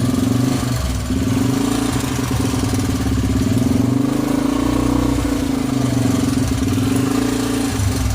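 Honda XL 100S single-cylinder four-stroke motorcycle engine running steadily at a fast idle with the throttle held, briefly dipping about a second in and again near the end. It sounds absolutely sweet: running smoothly on fresh fuel after its first start.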